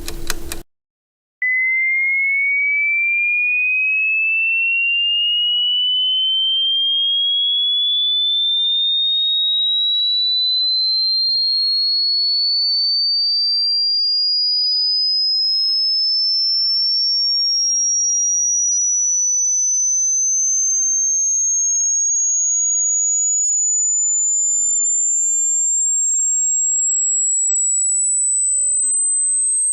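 A short bit of music cuts off, and after about a second of silence a single pure sine tone starts and glides slowly and steadily upward in pitch at a constant level. It is a hearing-test frequency sweep, meant to climb until the listener can no longer hear it.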